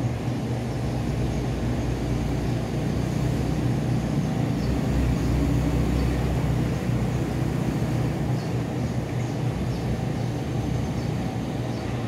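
Steady low rumble and hum, with a few faint, short, high chirps now and then.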